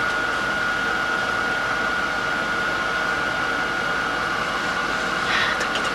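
Steady running noise inside a moving Twilight Express sleeper-train carriage: an even hiss with a faint steady high tone, and no distinct knocks or wheel clicks.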